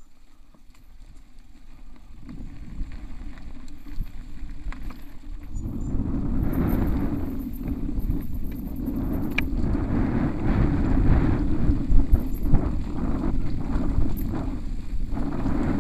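Mountain bike rolling fast down a dirt trail, heard from the bike itself. A low rumble of wind buffeting the camera microphone and tyres on dirt grows louder over the first six seconds as speed builds, with the bike rattling and clicking over bumps.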